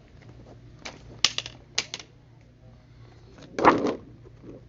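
Sharp clicks and rattles of small packaged items being handled, then a louder clatter about three and a half seconds in, as of something knocking or dropping.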